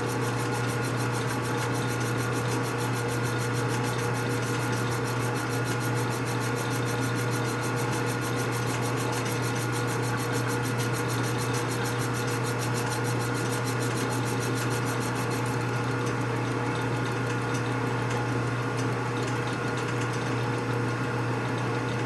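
Machine tool running steadily with a constant hum. A fine, high, even buzz drops away about two-thirds of the way through while the hum carries on.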